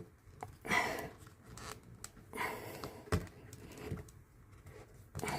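A few heavy, noisy exhales of someone straining at a fiddly task. A sharp click of hard pieces knocking comes about three seconds in.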